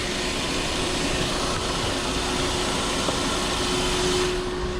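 Maruti Suzuki Alto's petrol engine idling with the AC on and the radiator cooling fan running: a steady whir with one constant hum, and no rattle or knock, the engine sitting steady on freshly replaced engine mounts.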